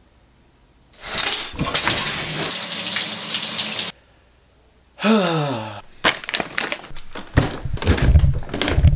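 Loud rustling and handling noise, then a brief sound falling in pitch, then a run of knocks and thumps: footsteps going down wooden stairs with the camera held in hand.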